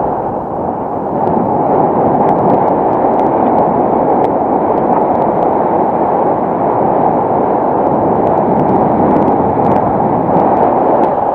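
Wind rushing over a camera microphone on a paraglider in flight: a loud, steady buffeting rumble.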